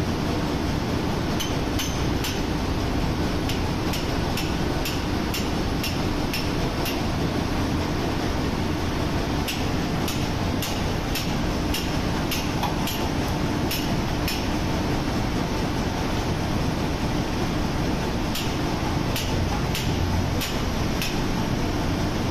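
Steady machinery noise of a ship's engine room, with a run of light metallic taps about two a second, coming in three spells.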